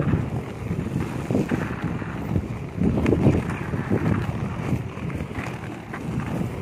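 Wind buffeting the microphone over the low rumble of inline skate wheels rolling on a concrete path. It is an uneven rumble that swells and is loudest about three seconds in.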